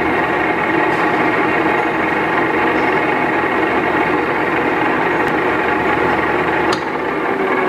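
Goodway GW-1440 engine lathe running, its spindle turning with a steady mechanical whine and hum from the headstock. There is a single click near the end.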